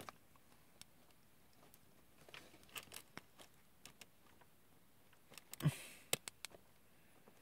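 Small plastic model-kit parts being handled and pressed together by hand: faint scattered clicks and rustles. About five and a half seconds in there is a louder thump with brushing, followed by a couple of sharp clicks.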